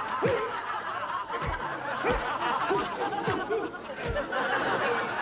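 A run of about six farting noises, each a blurt that falls in pitch, over restaurant chatter.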